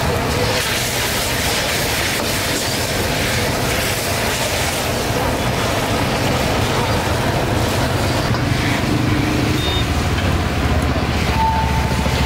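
Gas wok burner running steadily under a wok of bubbling stir-fry sauce as a ladle stirs it. A low rumble grows stronger in the second half.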